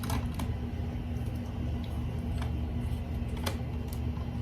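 A few light clicks and ticks of wire connectors being twisted off the wires of an old hard-wired smoke alarm harness, over a steady low hum.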